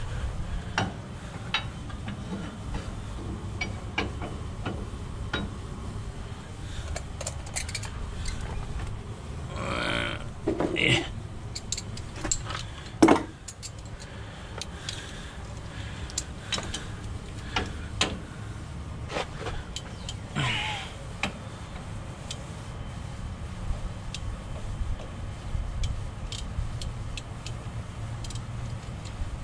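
Hand tools clicking and clinking on the Chrysler 9.25 axle's carrier bearing adjusters, over a steady low rumble. There are a few louder scrapes and one sharp metal knock about 13 seconds in.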